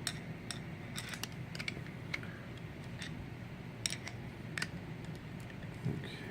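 Small sharp metal clicks and taps at irregular intervals as a padlock is handled and opened up for disassembly.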